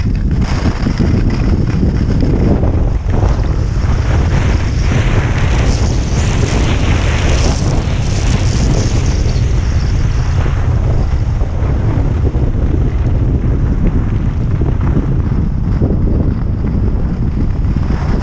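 Wind buffeting a skier's camera microphone during a downhill run, a steady loud rumble, with the hiss of skis sliding over groomed snow that is strongest in the middle of the stretch.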